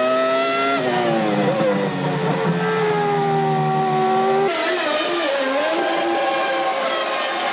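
Formula One car engines in 1998 trim, a high-revving V10 note: one engine holds, then falls steadily in pitch as the car slows for a corner. About four and a half seconds in, the sound switches abruptly to another engine whose note wavers up and down.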